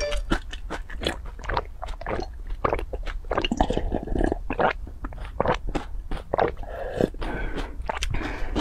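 Close-miked eating sounds of corn puffs soaked in milk, taken straight from a glass bowl: rapid crunchy chewing clicks throughout, with longer wet slurping gulps about three and a half seconds in and again around seven seconds.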